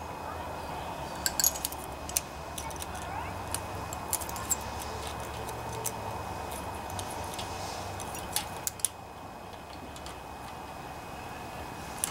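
Scattered light metallic clicks and clinks from hand tools working the valve train of a Honda GCV190 engine: slip-joint pliers on the intake rocker arm's adjusting nut and a steel feeler gauge blade sliding in to set the valve clearance. A steady background hum runs underneath.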